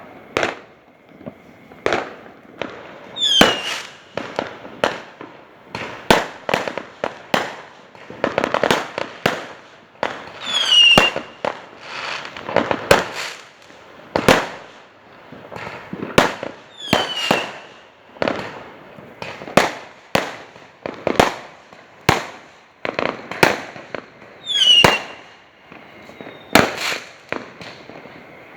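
Fireworks going off: a steady run of sharp bangs, one or two a second, with about four whistles falling in pitch among them.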